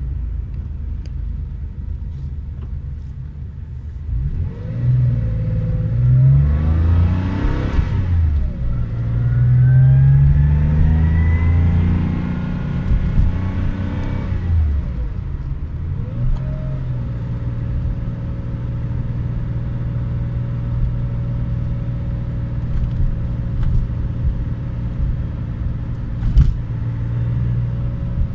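Car engine accelerating through the gears, its pitch rising twice with a drop between, then settling to a steady cruise with road noise. One sharp knock near the end.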